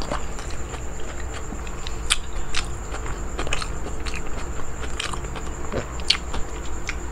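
Close-miked eating sounds: irregular wet clicks, smacks and crackles of a person chewing and handling food with bare hands, over a steady high tone.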